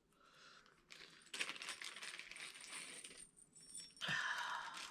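Small metal assembly hardware, such as screws and fittings, clinking and jingling as it is handled, with faint metallic ringing. A short, louder rustle follows near the end.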